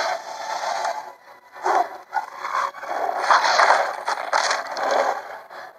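Film sound effects of rasping scrapes on dry wood, in irregular bursts: bodies or claws moving through a tangle of dead branches. The longest burst comes about halfway through.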